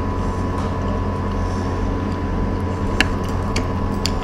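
A steady low mechanical hum with a constant thin high tone under it. A few light clicks of chopsticks against china plates come about three seconds in and again near the end.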